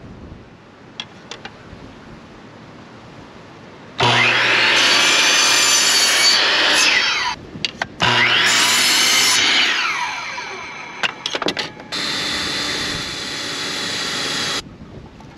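Electric sliding compound miter saw cutting through a 2x2 wooden board: the motor starts loud about four seconds in, cuts off for a moment, runs again, and the blade winds down. Near the end a cordless drill runs steadily for about two and a half seconds.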